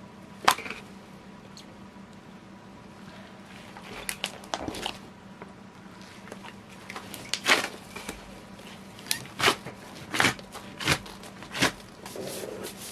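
Hands kneading a large mass of slime, making sharp wet clicks and pops. They come scattered at first, then as a run of loud pops about every 0.7 s near the end.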